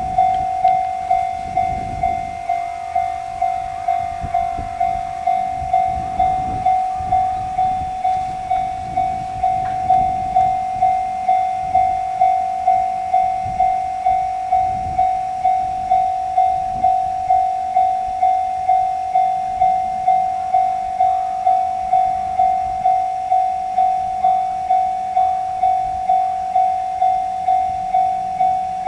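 Japanese level-crossing alarm ringing its electronic 'kan-kan' tone at about two strokes a second. A train's low rumble and wheel knocks run under it for the first ten seconds or so, then fade.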